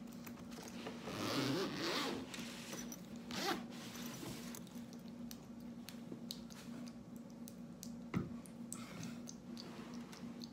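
Zipper of a small fabric backpack being pulled, a long rasping zip followed by a shorter one about three and a half seconds in, with light handling of the bag. A single sharp knock about eight seconds in.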